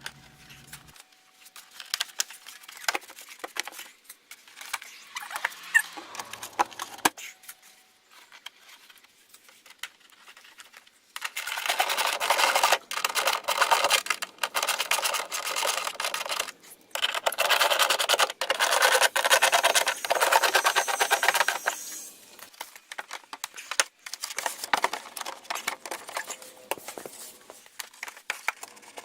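Hand work on metal and plastic parts: scattered clicks and knocks, then two stretches of dense, rapid rattling clicks about five seconds each, beginning about a third of the way in.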